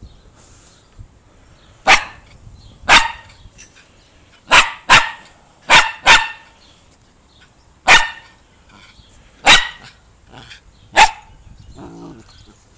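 Jack Russell-type terrier barking: about nine short, sharp barks, spaced irregularly, some in quick pairs.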